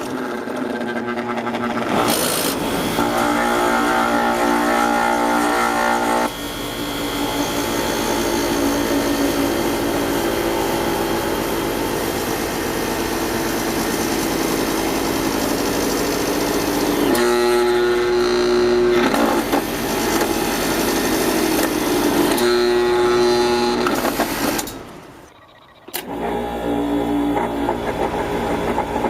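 Carrier A/C condenser compressor running with a loud, steady electrical hum while drawing high current, the condition that is tripping its overload switch. About 25 s in, the hum fades out for roughly a second, then comes back.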